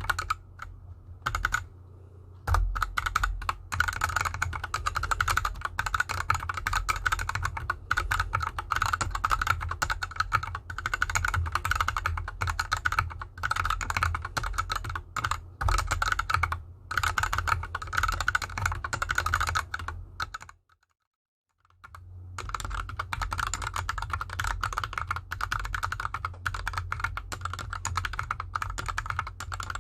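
Fast, continuous typing on a GK64X 60% mechanical keyboard with Gateron Yellow linear switches and DSA keycaps, set on an artificial grass mat: dense clacking keystrokes. The switches are unlubed at first; after a second of silence about two-thirds in, the typing resumes on the same switches lubed with Krytox 205g0.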